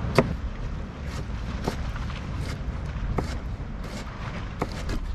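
Kitchen knife dicing a tomato on a plastic cutting board: about seven short knocks of the blade against the board, unevenly spaced, over a steady low rumble.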